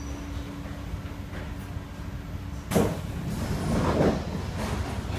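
SMRT C151A metro train rumbling as it comes to a stop, a steady hum cutting off about two and a half seconds in with a sudden burst of noise, followed by the passenger doors sliding open.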